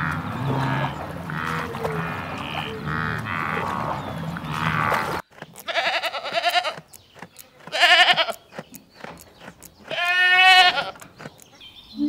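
For about five seconds a dense mix of noise and low animal sounds goes with a herd of water buffalo wading in muddy water. After a sudden cut, a goat bleats three times, about two seconds apart, each bleat quavering and the last one the longest.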